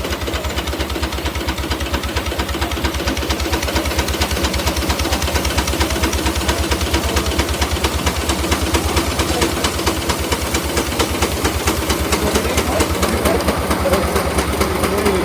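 An engine running steadily at a rapid, even beat, loud and close.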